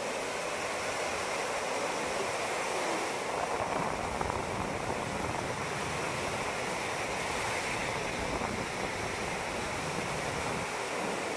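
Ocean waves breaking and washing on the shore as a continuous rushing surf, swelling a little about three to six seconds in.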